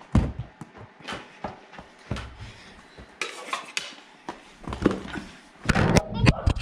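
Sharp clacks and knocks of plastic mini hockey sticks striking a small ball and the carpeted floor in a knee-hockey game, with a strong hit just at the start. Near the end comes a louder cluster of bumps and rubbing as the camera is handled.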